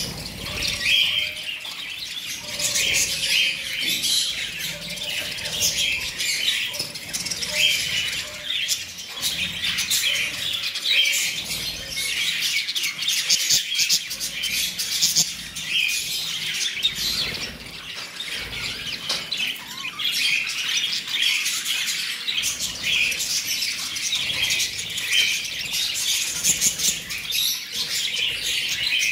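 A large flock of budgerigars chattering: a dense, unbroken mix of many overlapping chirps and squawks.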